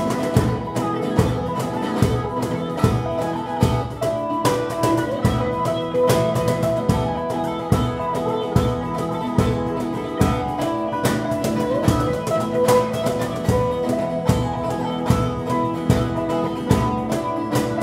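Live jazz-folk band playing an instrumental passage: a hollow-body electric guitar and a second guitar play sustained, ringing notes over regular percussion beats.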